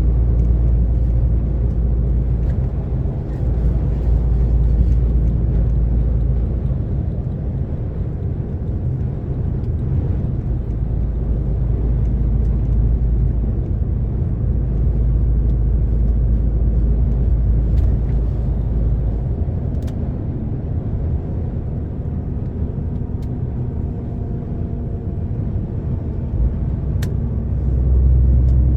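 DAF XF 460 truck driving along, its diesel engine and road noise making a steady low rumble that shifts slightly in depth now and then.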